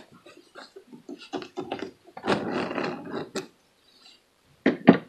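Hands shifting and pulling pants fabric at a sewing machine: irregular rustling with small knocks, a longer stretch of rustling, and two sharp clicks near the end. The machine is not sewing.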